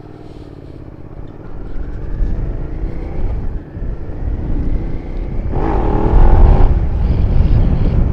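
Suzuki SV650S's V-twin engine accelerating, its pitch rising with a dip a little past three and a half seconds as it shifts up, then climbing again. Wind rushing over the helmet microphone grows louder as speed builds.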